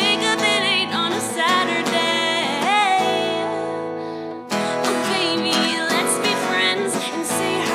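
A woman singing over a strummed acoustic guitar. About three seconds in, the strumming stops and the last chord is let ring and fade for about a second and a half, then the strumming and singing start again.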